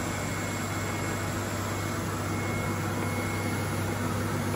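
Steady hum and hiss of a screen-printing machine standing powered up, a constant low drone with no distinct printing strokes.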